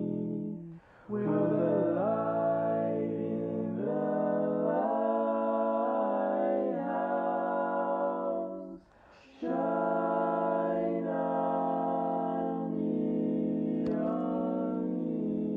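Four-part barbershop harmony sung a cappella, all four parts sung by one man and layered: long held chords that move in close harmony, with a brief pause for breath about a second in and another around nine seconds in.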